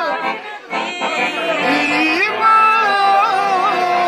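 Male singer singing a Serbian Romani-style song with piano accordion accompaniment, played acoustically without amplification. The voice slides and ornaments between notes, breaks off briefly about half a second in, then holds long notes.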